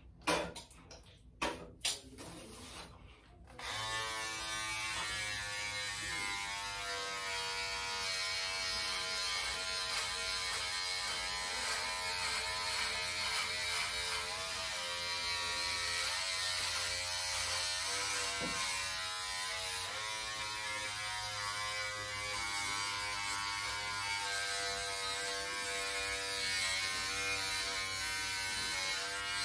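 A few handling clicks and knocks, then about four seconds in a Braun 6-in-1 electric shaver switches on and buzzes steadily, its pitch wavering slightly as it is run over armpit hair.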